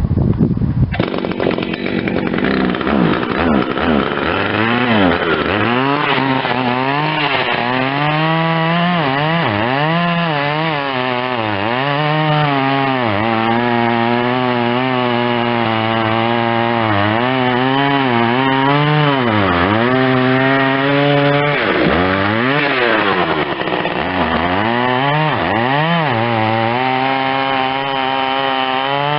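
Husqvarna 61 two-stroke chainsaw (61cc) cutting wood at full throttle, its engine pitch dipping under load and climbing back again and again as it works through the cuts.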